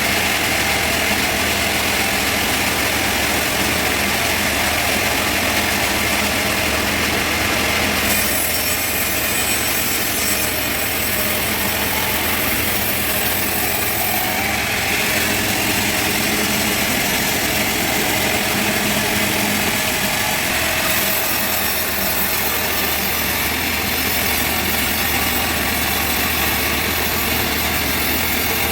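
Engine-driven sawmill saw running and cutting through a trembesi (rain tree) log, a loud, steady mechanical noise whose high-pitched part changes a few times as the cut goes on.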